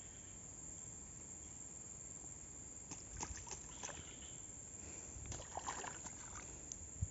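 Faint rustling and handling noises with a few soft clicks, mostly in the middle and latter part, against a quiet outdoor background.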